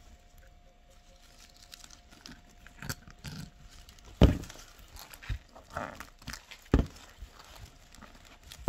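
Rustling and crinkling of fir and holly sprigs being handled with rubber-gloved hands on a moss ring, with several sharp knocks, the loudest about four seconds in.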